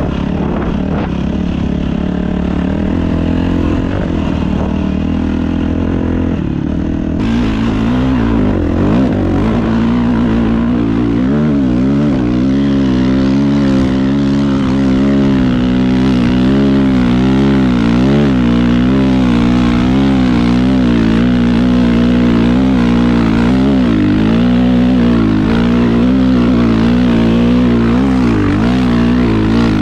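Dirt bike engine running while riding, its note wavering up and down steadily with the throttle. About seven seconds in, a hiss sets in on top of it.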